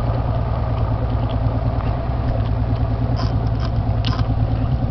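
Boat motor running steadily, a constant low engine hum, with a couple of faint ticks about three and four seconds in.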